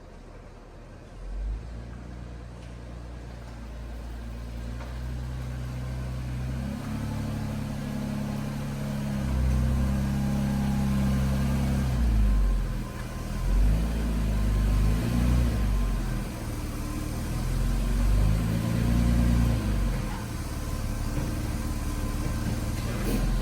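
A vehicle engine running, its low hum stepping up and down in pitch and growing louder for a while, with a sharp knock near the end.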